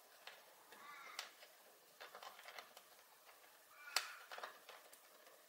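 Faint clicks and light scraping of hands fitting a triac's mounting screw into an oven's metal control panel, with one sharp click about four seconds in and a few short squeaks near the start.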